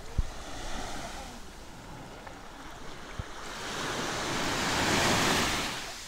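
Small Baltic Sea waves breaking and washing up a sandy shore, a steady surf wash that swells louder over the second half and drops away just before the end.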